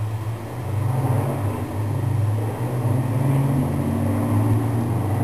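Low, steady engine rumble of a motor vehicle outside, coming in through an open window and growing louder about a second in.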